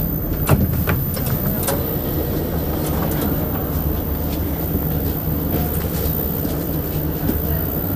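Prague metro train heard from inside the car: a steady low rumble and hum, with a few sharp clicks or knocks in the first two seconds.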